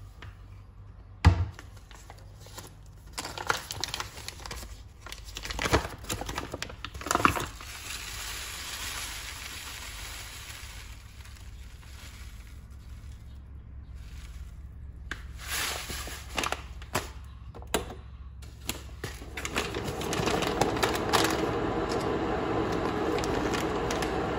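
Kitchen handling sounds: a sharp knock, rustling, and dry rolled oats poured from a bag into a ceramic bowl on a glass kitchen scale, with scattered clicks. From about twenty seconds in, a steady hum sets in and holds: an electric kettle starting to heat water.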